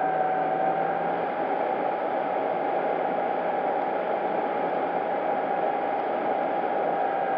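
FMS P-40B Tomahawk RC plane's electric brushless motor and propeller running steadily, heard from the onboard camera as a steady whine over heavy wind rush.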